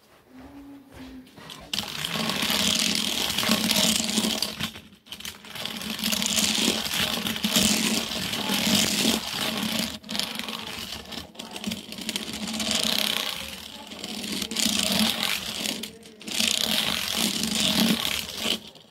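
A toy car pushed by hand around a track of plastic blocks, its wheels rolling and rattling over the blocks in runs of a few seconds each with short breaks between.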